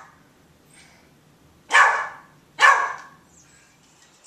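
Rat terrier barking: the tail of one bark at the very start, then two sharp barks about a second apart a little before the middle.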